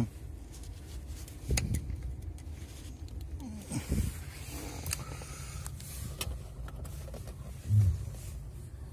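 Screwdriver tightening a self-tapping screw into the steering wheel's horn pad, with scattered clicks and knocks of plastic parts over a steady low rumble.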